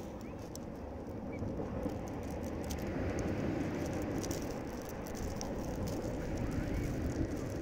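Surf washing over a pebble beach: a steady rush of waves with the small stones rattling in many quick, sharp clicks as the water moves them.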